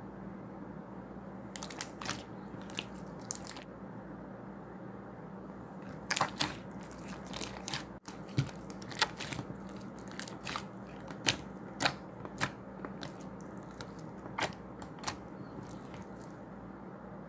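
Slime being pressed and worked by hand, giving irregular sharp clicks and pops: a few around two seconds in, then a busier run from about six seconds in. A steady low hum runs underneath.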